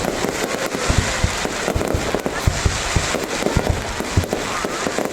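Fireworks display going off without a break: many irregular low booms over a dense, continuous crackle.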